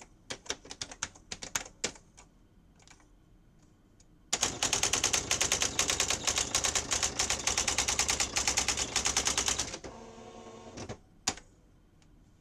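Sears 10k40 daisy wheel electronic typewriter: a few separate keystroke clicks, then a fast, even run of daisy wheel strikes lasting about five seconds as a line prints. Near the end comes a brief motor whir, the carriage moving, and a single click.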